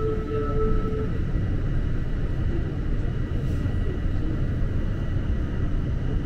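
Toronto subway train running through a tunnel, heard from inside the car: a steady low rumble of wheels on track. A steady whine stops about a second in.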